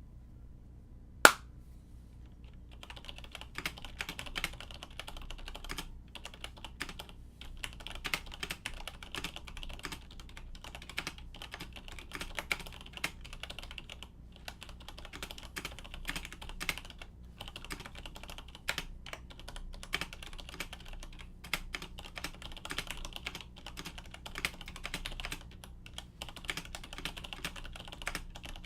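Typing on a stock Siemens Nixdorf keyboard with Nixie switches, a steel plate and ABS keycaps: a fast, continuous run of key clacks with a few short pauses. A single sharp click, the loudest sound, comes about a second in, before the typing starts.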